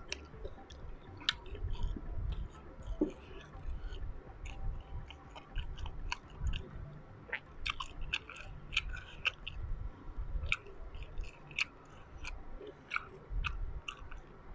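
Chewing of a grilled Cambodian beef sausage (tongmo), minced beef in a beef-intestine casing: irregular wet mouth clicks and smacks throughout.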